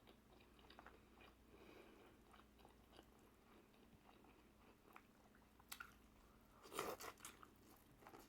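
Faint close-up eating sounds: chewing with small wet mouth clicks and smacks, with a louder cluster of chewing sounds about seven seconds in.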